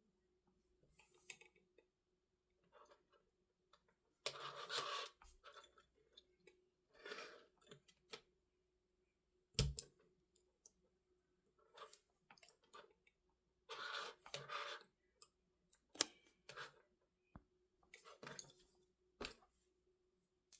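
Scattered clicks, crunches and short rustling scrapes of hand tools working at an FPV battery cable, with one sharp knock about ten seconds in, over a faint steady hum.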